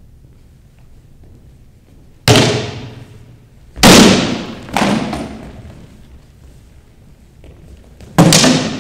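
Sword blows landing on round wooden Viking shields in sparring: four loud cracking impacts, the first about two seconds in, then two close together and a lighter one after them, the last near the end. Each blow echoes in a large hall.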